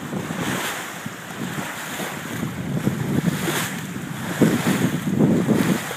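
Water rushing and splashing along the hull of a sailboat under sail, with wind buffeting the microphone in uneven gusts.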